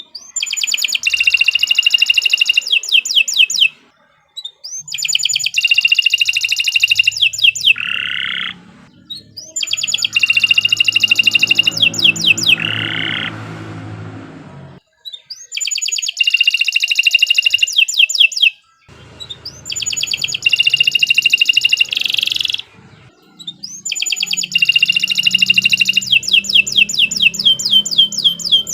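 Domestic canary singing in long, rapid bouts of trills and rolls, about six phrases of three to four seconds each with short pauses between them.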